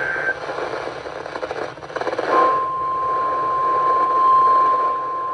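Radio hiss, then about two seconds in a single steady alarm tone starts and holds: the NOAA Weather Radio 1050 Hz warning alarm tone, sounding for a routine weekly test of the station's warning system.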